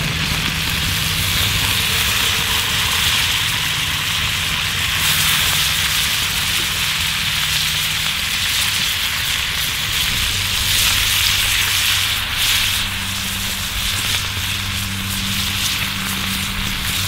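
Brook trout and fish guts frying in bubbling butter in a pan over a campfire: a steady sizzle.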